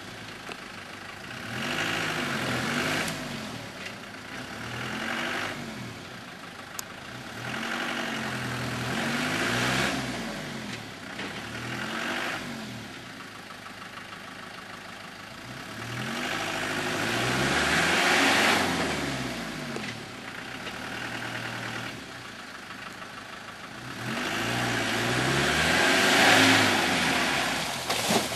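Land Rover Discovery's engine revving up and dropping back again and again, every two to three seconds, as the vehicle works through deep mud. The longest, loudest revs come about two-thirds of the way in and near the end.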